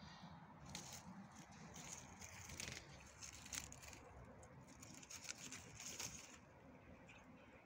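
Faint, irregular rustling and crackling of dry plant stalks and a plastic strap as a cat paws and rolls on them in the dirt, dying away about six seconds in.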